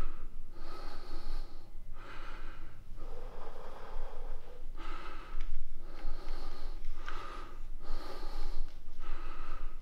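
A man breathing hard, out of breath from a workout: heavy in-and-out breaths, about one a second.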